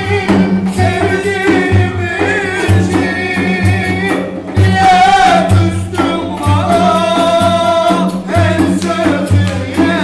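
Live Turkish oyun havası dance music: clarinet and cümbüş play the melody over a steady hand-struck drum beat, with a man singing.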